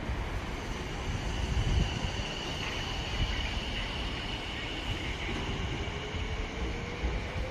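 Electric train running with a steady low rumble; from about two-thirds of the way in, a motor whine rises slowly in pitch as the train gathers speed.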